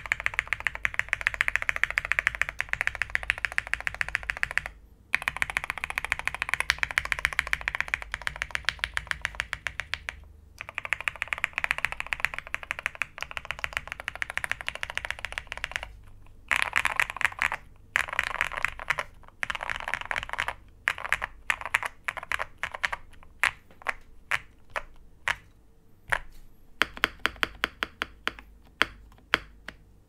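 Typing on a lubed mechanical keyboard: an OwLabs Jelly Epoch with an aluminium plate, full foam, broken-in Hyperglide MX Black linear switches and MT3 PBT keycaps. Long runs of dense keystrokes are broken by short pauses about every five seconds. They thin to shorter groups of separate keystrokes in the last third.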